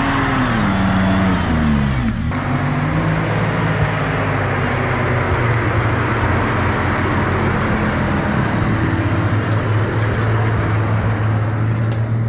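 Off-road 4x4 engine revving up and down. After a sudden break a couple of seconds in, it runs steadily under a wide noise of tyres and engine.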